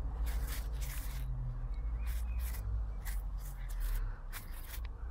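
Gloved hands handling shock absorber parts: scattered short rustles and light clicks over a steady low rumble that drops away about four seconds in.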